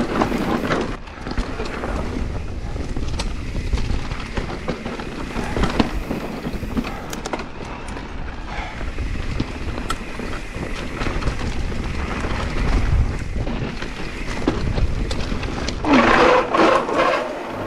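Mountain bike riding down a rocky dirt trail: tyres rolling and rattling over stones with knocks from the bike, and wind buffeting the microphone. Near the end a louder pitched sound cuts in briefly.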